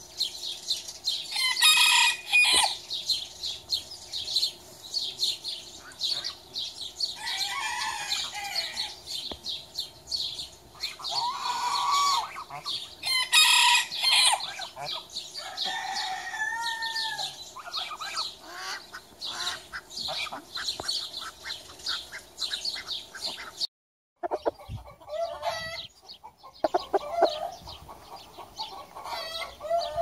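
Chickens calling and clucking, with several louder calls in the first two-thirds, over constant fast chirping of small birds. After a short break the clucking is lower and closer near the end.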